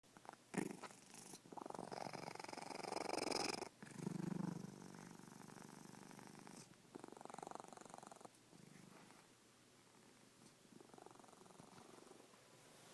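Domestic cat snoring in its sleep: a noisy snore on each slow breath, the breaths a few seconds apart, loudest in the first few seconds.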